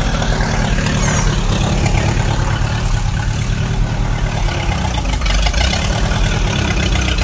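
Tractor engine running steadily, a heavy, even engine sound.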